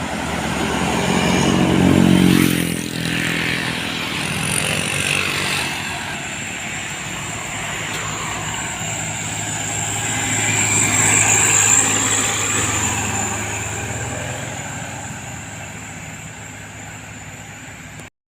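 Road traffic passing close by. A vehicle with a deep engine is loudest about two seconds in, its pitch falling as it goes past, and a second vehicle swells past around eleven seconds in. The sound cuts off suddenly near the end.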